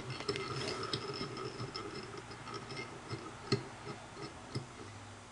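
Small irregular clicks and ticks of fly-tying handwork at the vise as tinsel is tied onto the hook, with one sharper click about three and a half seconds in, over a faint steady hum.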